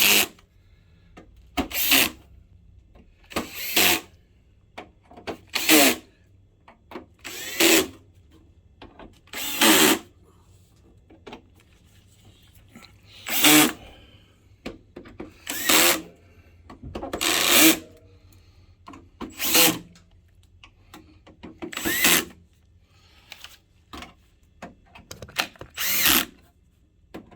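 Electric screwdriver running in a series of case screws, about a dozen short bursts a couple of seconds apart, some rising in pitch as the motor spins, each ending as the screw seats at a low clutch setting.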